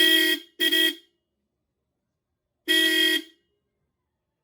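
Fake Bosch Europa horn sounding in three blasts, each with a steady pitch: two short toots in quick succession, then a slightly longer one about two and a half seconds in.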